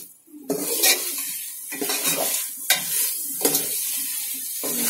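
A ladle stirring chicken through thick masala gravy in a metal pot, scraping and knocking against the pot's side about once a second, over a steady sizzle from the hot pot.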